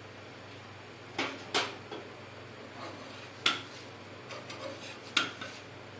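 A few sharp, irregular metal clinks of kitchenware against the griddle as water is spread over a jowar bhakri cooking on the tawa.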